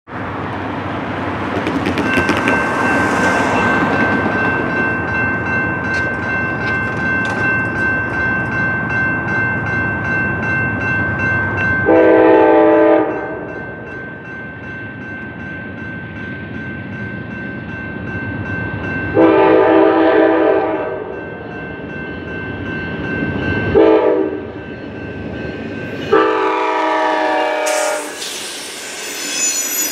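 Amtrak P42DC locomotive's Nathan K5LA five-chime air horn sounding the grade-crossing pattern of long, long, short, long over a grade-crossing warning bell that rings steadily. The last long blast drops in pitch as the locomotive reaches the crossing, and the train then rushes through with wheels clattering over the rails.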